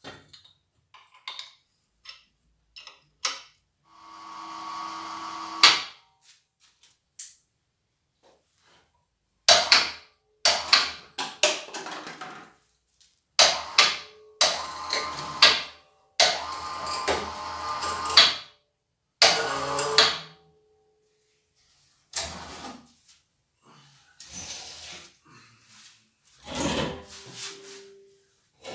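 Irregular metal clanks, knocks and rattles of steel engine-stand and hoist hardware as a cast-iron V8 block is handled and moved, some knocks ringing briefly. About four seconds in there is a longer scraping sound lasting a couple of seconds.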